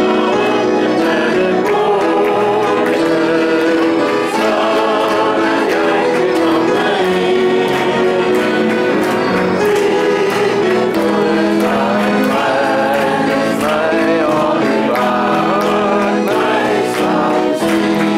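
Voices singing a Danish hymn to accordion accompaniment, the accordion's chords held steady beneath the sung melody.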